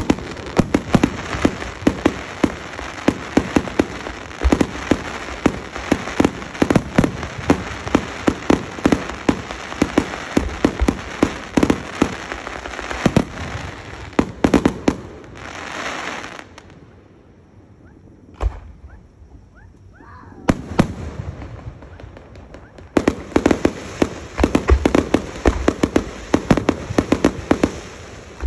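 Fireworks display: rapid volleys of aerial shell bursts with crackling, many bangs a second. About halfway through it dies down to a lull with a single bang and faint rising whistles of shells going up. Then dense bursts start again and carry on.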